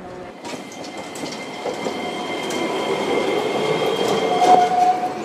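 Iyotetsu 5000-series low-floor streetcar passing close by, its wheels clacking over the rails and crossing, growing louder as it approaches. A steady high whine runs under it, with a brief louder squeal near the end.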